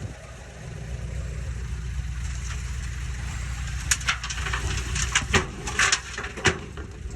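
Diesel engine of heavy earthmoving equipment running steadily with a low rumble. Several sharp knocks come in the second half.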